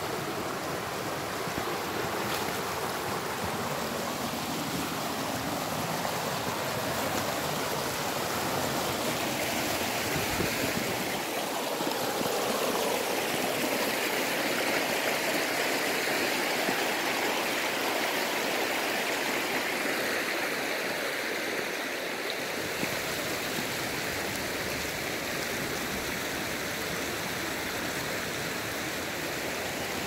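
Mountain stream running in shallow riffles over smooth bedrock: a steady rush of water that swells a little in the middle.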